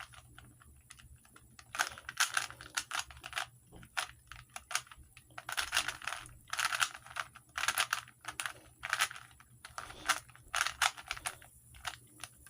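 Plastic Rubik's cube being turned by hand: irregular runs of quick clicking and clacking as the layers are twisted, with short pauses between runs.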